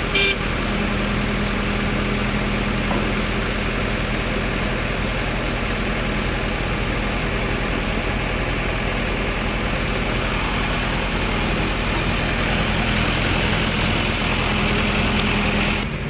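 Heavy diesel engine running at a steady speed, a constant low hum with no change in pitch.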